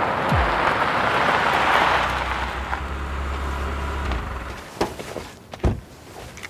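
A Nissan Pathfinder SUV rolls in over gravel and stops, its engine running low before cutting out about four seconds in. Then come a click and a solid clunk as the car door is opened and shut.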